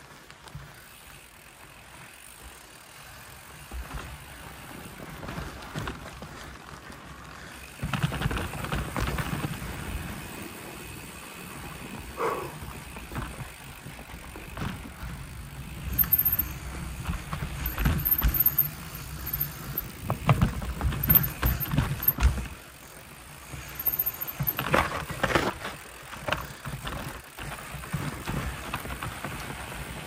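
Mountain bike riding a rough dirt trail: the bike rattles and clatters over bumps, getting louder and busier about eight seconds in.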